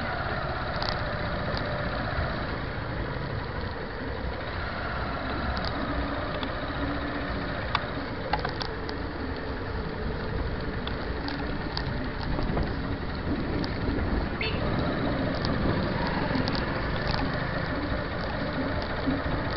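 Engine and road noise of a vehicle driving slowly along a street, heard from on board the vehicle, with a few faint clicks.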